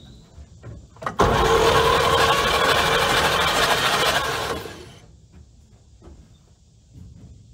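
Starter cranking a 1954 Chevy truck's inline-six engine with its spark plugs out, spinning it freely to blow leftover oil out of the cylinders. It cuts in just after a click about a second in and stops after about three and a half seconds.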